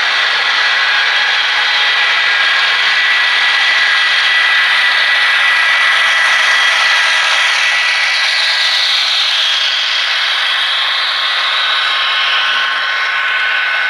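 Model trains running on the layout: the steady rolling hiss of model hopper wheels on the rails with a high, steady motor whine. It swells about nine seconds in as a pair of model diesel locomotives passes close by.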